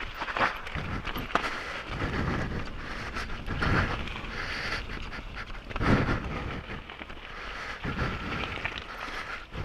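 A mountain-bike rider's heavy breathing, exhaled straight into a microphone just in front of the mouth, loud puffs about every two seconds over steady bike and trail clatter.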